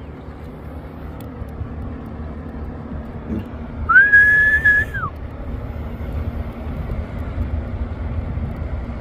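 A single loud whistle blast lasting about a second, a steady high tone that slides up at the start and drops away at the end, heard about four seconds in over a low steady rumble.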